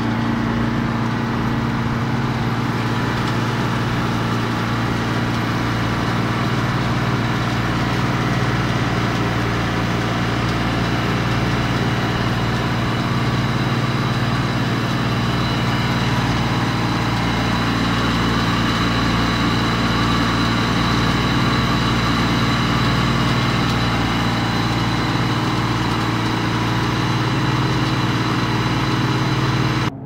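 Two-stage piston refrigeration compressor unit running steadily during its start-up and commissioning: a constant machine hum with a few steady low tones under an even hiss.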